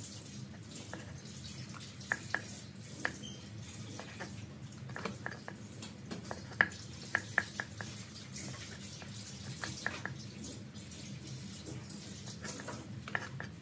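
Cleaver chopping garlic cloves on a wooden cutting board: irregular sharp knocks of the blade on the wood, with a steady low hum underneath.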